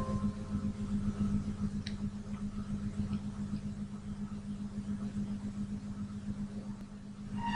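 Steady low hum with an even hiss underneath and a few faint clicks: room tone, with no music playing.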